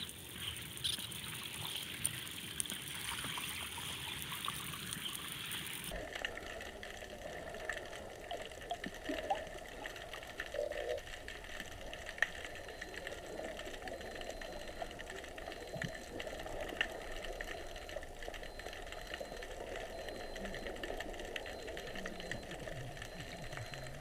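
Underwater ambience: a steady, muffled water noise with scattered faint clicks. Its tone changes abruptly about six seconds in, from a higher hiss to a lower rush.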